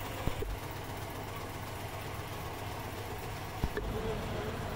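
Steady low mechanical rumble, with two short knocks: one about a third of a second in and one about three and a half seconds in.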